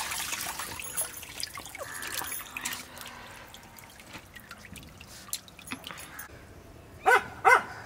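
Water running from a hose and splashing and dripping into a pan as buffalo tripe is rinsed by hand, loudest in the first few seconds. Near the end a dog barks twice, the loudest sounds.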